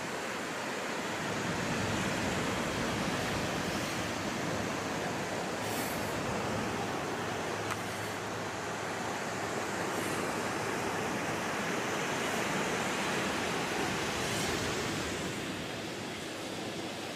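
Ocean surf and wind on the beach: a steady rushing wash that swells a little louder about two seconds in and eases off near the end.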